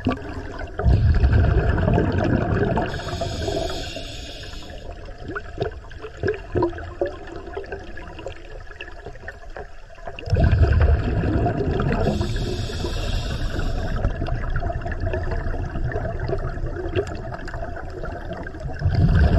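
Scuba diver breathing underwater through a regulator: a hiss on the inhales and a low rumble of exhaled bubbles, with the breaths several seconds apart. A few small knocks fall in the quieter stretch between breaths.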